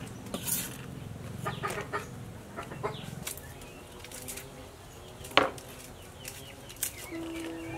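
Hens clucking in the background, with scattered small clicks and taps from peeling garlic or shallots at a wooden chopping block and one sharp knock about five seconds in. Music comes in near the end.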